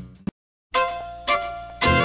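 Background music: a song fades out, followed by a short gap of silence. A new piece then starts with two ringing notes that die away, and fuller music with strings comes in near the end.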